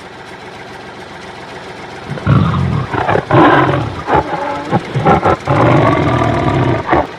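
A steady tractor engine running, then from about two seconds in a tiger roaring and growling loudly several times over it.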